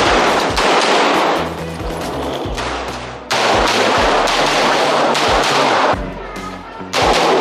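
Loud background music with a steady thumping beat, a bass line and a dense, distorted upper layer that drops out and comes back in sections.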